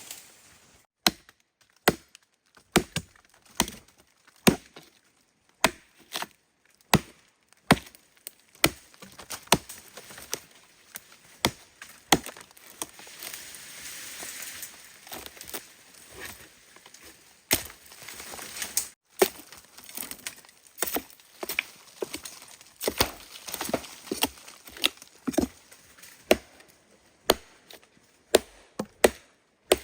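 A blade chopping into a wild tree trunk or stem while cutting out its core. It goes as a long series of sharp chops, mostly about one a second, sometimes two or three in quick succession.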